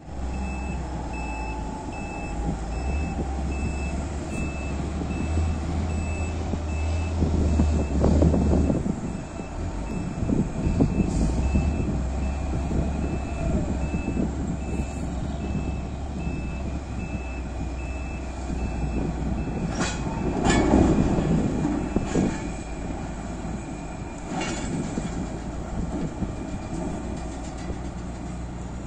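A haul truck's reversing alarm beeps steadily for about the first half and stops about halfway through, over the continuous low drone of heavy mining machinery. There are two loud spells of rock crashing and rumbling, about 8 and 21 seconds in. The later one comes as the electric rope shovel's dipper dumps its load of rock into the Komatsu dump truck's bed.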